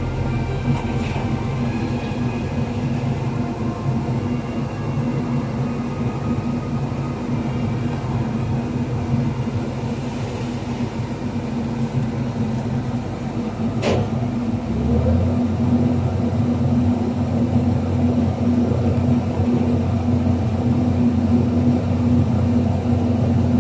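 Heavy diesel earthmoving machinery running steadily with a low, even hum. There is a single sharp tick about 14 s in, and the deepest rumble drops away just after it.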